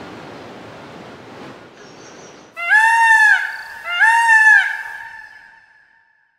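A whooshing rush of air fades out. Then come two loud, reedy horn-like honks, each just under a second with a slight rise and fall in pitch, ringing on and dying away.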